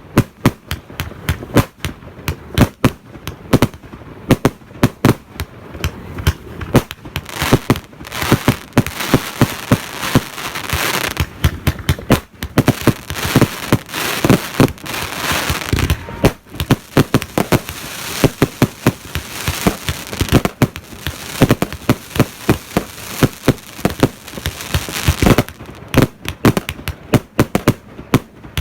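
A 200-shot consumer firework battery firing in rapid succession, several shots a second. Through the middle stretch a dense crackling hiss fills the gaps between shots.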